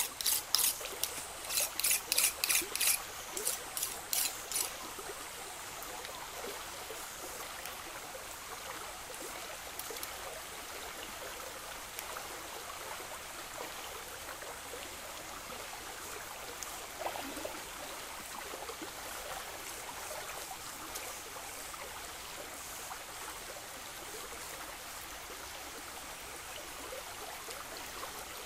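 Shallow stream trickling steadily over rocks. For the first few seconds a quick series of sharp scraping strokes, about three a second, sounds over the water, from a knife working at the stream's edge, then stops.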